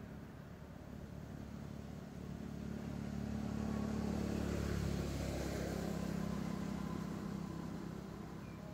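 A motor vehicle's engine hum that grows louder, is loudest about halfway through, then fades, as a vehicle passing by.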